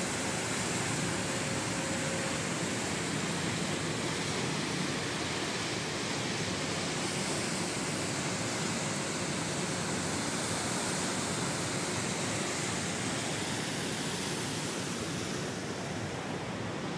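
Steady rushing and churning of a ferry's propeller wake, a dense wash of water noise that eases slightly near the end.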